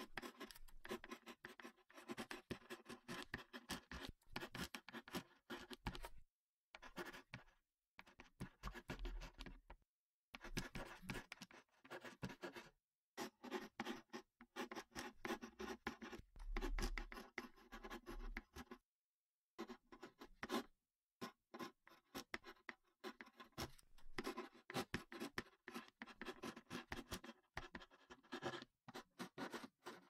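Ballpoint pen writing: quick scratching strokes in runs of a few seconds each, broken by short pauses.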